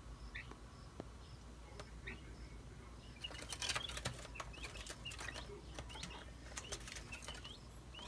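Small fledgling songbirds fluttering their wings and moving about, with short high chirps here and there; the fluttering gets busier about three seconds in.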